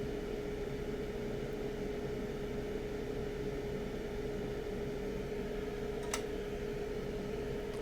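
Hot air rework station blowing steadily: an even rushing hiss with a constant hum. A single sharp click about six seconds in.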